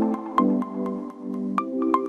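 Background music: light mallet-percussion melody, marimba-like, over held chords.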